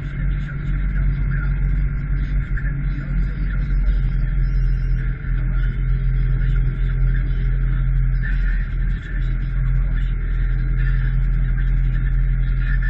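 Fendt Vario 718 tractor's diesel engine running steadily, heard from inside the cab as the tractor drives slowly: a constant low drone with a steady high whine over it.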